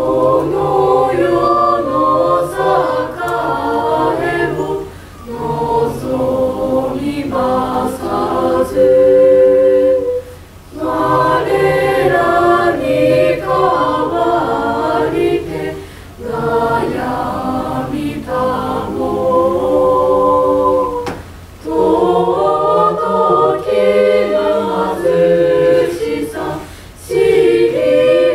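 Mixed choir of high-school students singing unaccompanied, in phrases with short breaks about every five seconds.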